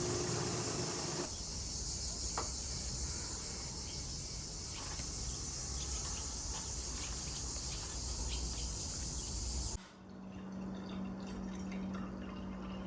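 A steady, high-pitched insect chorus that cuts off abruptly about ten seconds in. A low steady hum follows.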